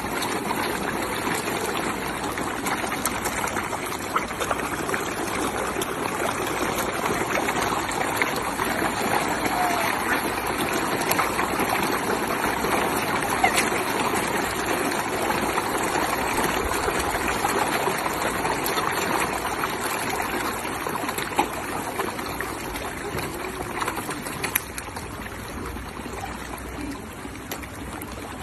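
Koi churning and splashing at the pond surface while being fed: a steady wash of splashing water with a few sharper splashes, easing slightly near the end.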